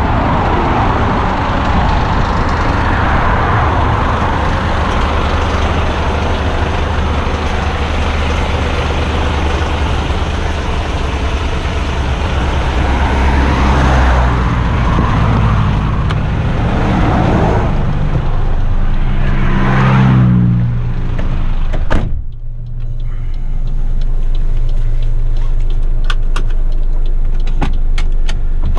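Garbage truck's diesel engine idling, with traffic passing close by on a wet road. About three-quarters of the way through a cab door slams shut and the sound turns muffled: the engine heard from inside the cab, with a few light clicks near the end.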